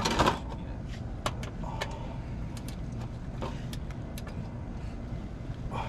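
Socket wrench working a car's oil drain plug loose: a loud scrape right at the start, then scattered sharp metallic clicks, over a steady low rumble.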